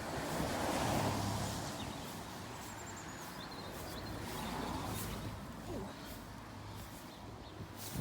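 Outdoor noise in wet, windy weather that swells about a second in, with a small bird giving a few short, high chirps in the middle.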